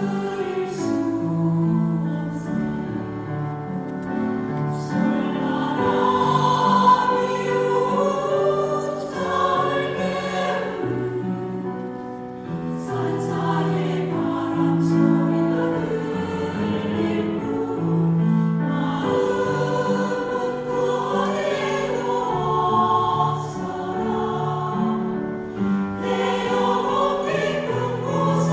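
A Buddhist choir singing a Korean Buddhist hymn in concert, the voices held in long, sustained chords over steady low notes.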